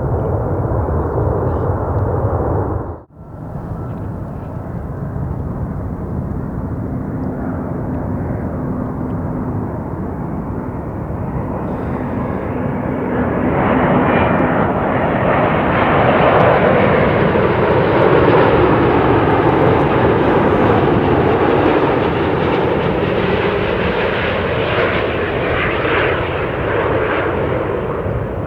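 Jet airliner engine noise breaks off sharply about three seconds in. Then an arriving Airbus A350-900's twin Rolls-Royce Trent XWB turbofans build up close by, loudest through the second half, their pitch sweeping down and back as the jet passes.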